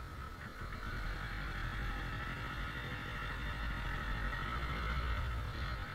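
Motorcycle riding along a highway, heard from a bike-mounted camera: a steady low wind rumble on the microphone mixed with engine and road noise, louder from about a second in.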